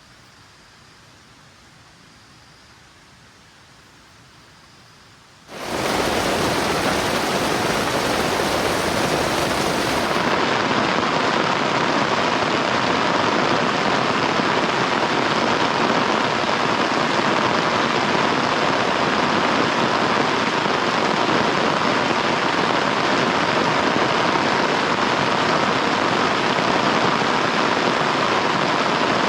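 Faint steady hiss, then heavy rain sets in abruptly about five seconds in and keeps up as a loud, steady downpour.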